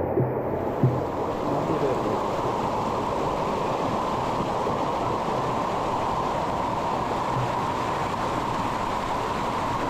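Steady rushing of water at a waterfall and its stream, an even unbroken noise.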